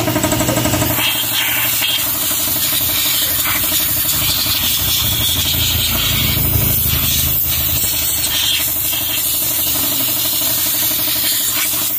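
A motor running steadily with an even, low pulse, with a steady hiss over it.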